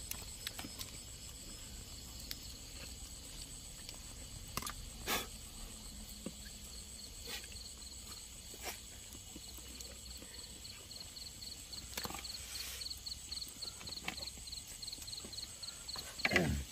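Night insects calling: a rapid, even pulsing chirp and a steady high whine, with scattered sharp clicks. Near the end a louder sound slides steeply down in pitch.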